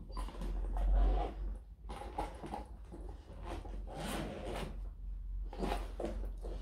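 A spaniel nosing open the lid of a soft insulated cool bag and rummaging inside: irregular rustling and scuffing of the fabric bag, with a dull bump about a second in.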